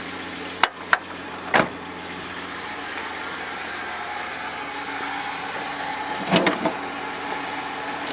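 A Holden VS Commodore's Ecotec V6 idling steadily, with three sharp clicks in the first two seconds and a brief rattle of handling noise about six seconds in.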